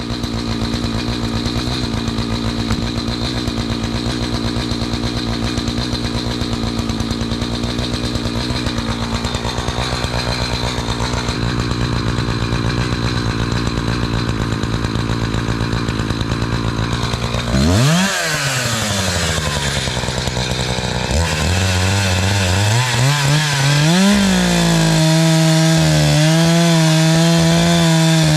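Two-stroke chainsaw running at high throttle with a steady whine, cutting a knotty piece of oak with a freshly sharpened chain. About two-thirds of the way through, the engine pitch swoops down and up several times as the throttle is eased and opened again. It then holds a steady, lower note.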